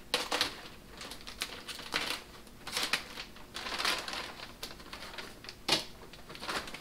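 Plastic parts bag being torn open and handled, crinkling with irregular clicks and rustles, and one sharper snap near the end.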